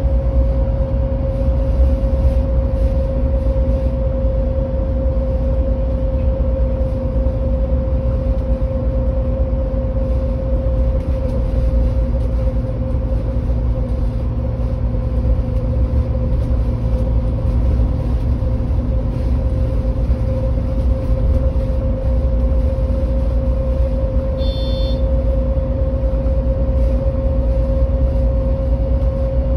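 MAN Lion's City 12C EfficientHybrid city bus (NL280, diesel mild hybrid) idling while standing still: a steady low engine rumble with a steady mid-pitched hum over it. A brief high beep sounds once about 25 seconds in.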